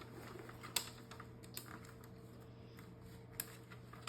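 Faint, scattered light clicks and taps of plastic parts of a toy airsoft gun being handled and fitted together, over a faint steady hum.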